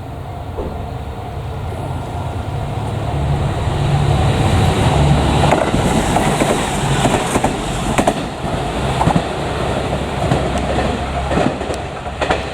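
A JR Kyushu diesel railcar passes close by. Its diesel engine drone swells over the first few seconds, then the wheels clatter over rail joints in sharp clacks, the loudest about eight seconds in.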